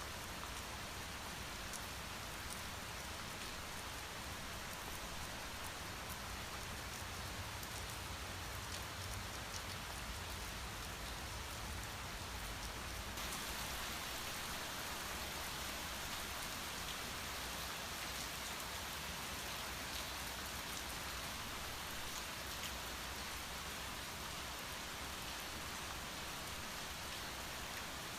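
Steady rain falling, an even hiss with scattered drop ticks. About thirteen seconds in, the hiss turns a little brighter.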